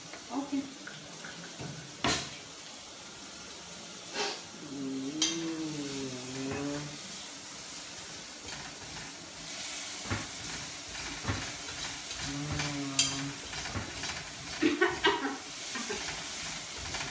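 A metal spatula knocking and scraping in a kadai while onions and spices sizzle in hot oil.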